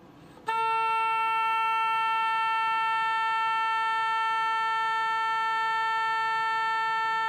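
Oboe playing one long, steady A, about 440 Hz, that starts about half a second in and is held at an even level: a long-tone exercise.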